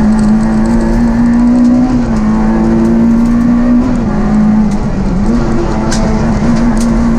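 Rally car engine at high revs under hard acceleration, heard from inside the cabin. Its pitch holds high and dips briefly twice, about two seconds in and again near five seconds, as at gear changes, then climbs again.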